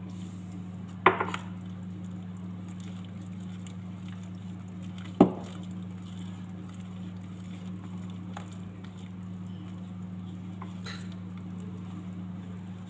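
Wire whisk stirring pancake batter in a ceramic bowl, with soft wet patter and two sharp clicks about a second in and about five seconds in. A steady low hum sits under it.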